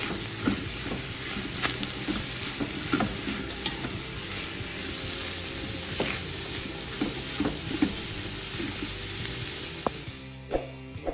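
Ground beef with freshly added raw leeks, bell peppers and onions sizzling in rendered beef fat in a metal pot, stirred with a spatula that scrapes and clicks against the pot. The sizzle cuts off suddenly shortly before the end, followed by a couple of knocks.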